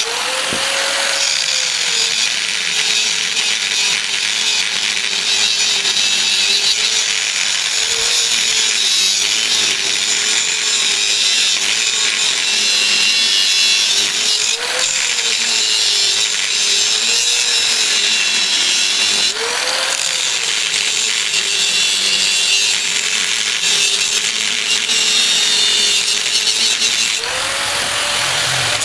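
Angle grinder with a cutting disc cutting through the metal shell of an inverter air-conditioner compressor, a steady motor whine over a hiss of grinding. The whine sags and recovers as the disc bites and eases, and rises near the end as the grinder comes off the cut and speeds up.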